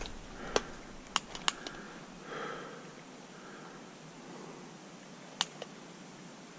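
A few sharp, separate clicks and taps over a steady background hiss: one about half a second in, two close together a little after a second, and one more near the end.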